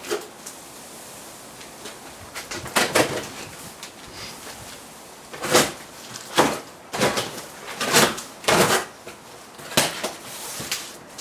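Irregular handling noises from unpacking a boxed staging unit: a run of short scrapes and rustles, thicker and louder in the second half.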